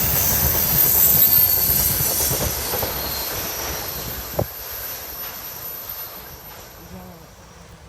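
Freight train's wheels clattering over the rails, the sound fading steadily as the train moves away, with a single short sharp knock about four and a half seconds in.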